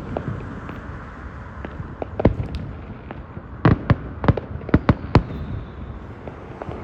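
Aerial fireworks bursting in a display: sharp bangs, one near the start, one after about two seconds, then a quick run of about six between about three and a half and five seconds in.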